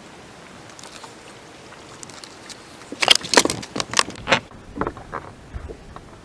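A quick run of sharp clicks and knocks about three seconds in, then a few softer ones: gear being handled on a boat deck.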